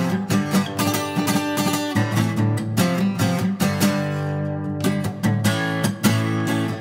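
Acoustic guitar strumming chords in a progressive rock instrumental passage; about halfway through, a chord is left ringing before the strumming picks up again.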